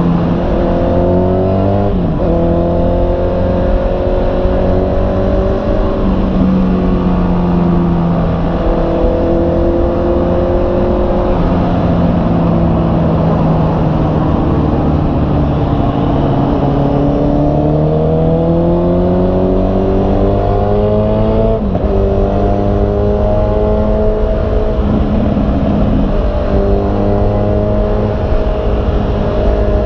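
Honda CB650R's inline-four engine running under way, its pitch climbing with throttle and dropping suddenly a few times as it shifts gear, over a low rumble of wind and road noise.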